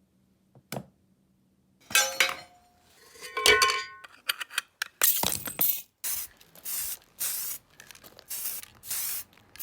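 Small metal parts clinking and knocking against each other with a brief ringing. From about halfway, a run of short, sharp hissing strokes follows, roughly two a second.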